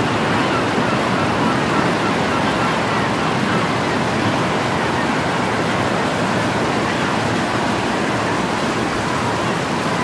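Ocean surf breaking and washing in, a steady wash of noise with no single crash standing out.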